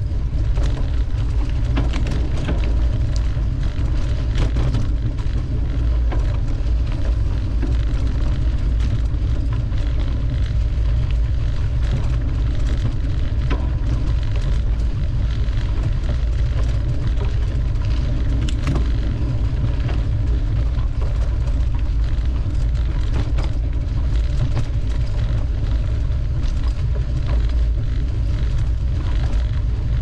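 Mountain bike riding over a dirt trail: a steady heavy rumble of wind and vibration on the microphone, with frequent small clicks and rattles from the bike jolting over the bumps.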